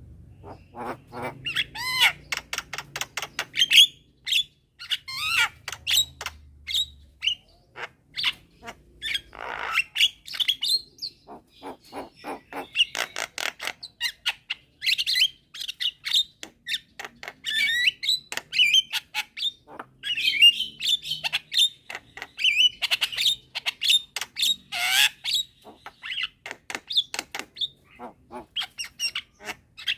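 Javan mynas calling: a rapid, unbroken stream of short harsh chirps, squawks and clicks.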